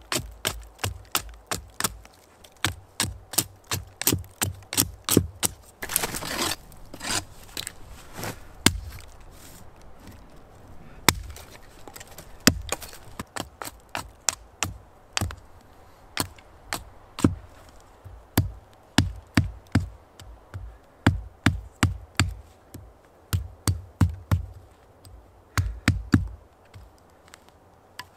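Small axe splitting thin sticks on a tree stump: a steady run of sharp chopping knocks, about two a second, with a short break about a third of the way through.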